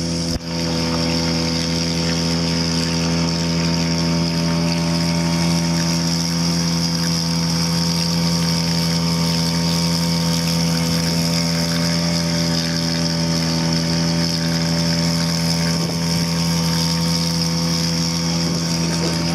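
Gamefisher 3.0 hp two-stroke outboard motor running steadily at a constant cruising speed, pushing the boat along; its buzzing drone holds one even pitch throughout.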